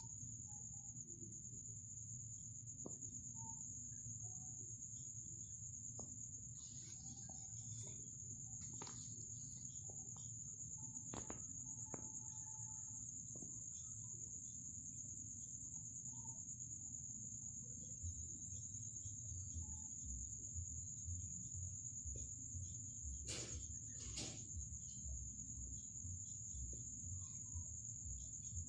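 A steady high-pitched whine over a low rumble, with scattered faint clicks and short rustles.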